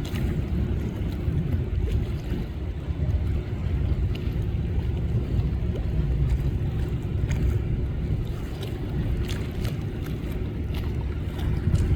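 Speedboat with twin Volvo Penta engines under way: the engines give a steady low drone under a haze of water and wind noise, with scattered sharp clicks.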